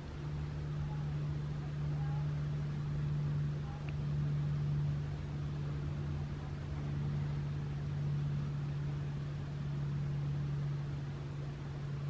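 Steady low hum of an engine running, swelling and easing slightly in loudness.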